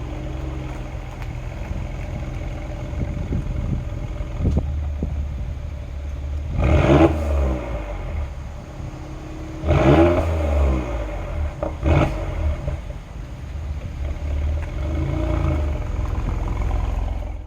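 Mercedes-AMG GLE 43's twin-turbo V6 running with a steady low rumble, blipped twice in quick revs that rise and fall, about seven and ten seconds in. A short sharp pop follows about twelve seconds in.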